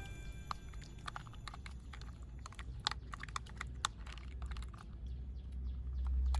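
Faint, irregular light clicks and taps over a low hum.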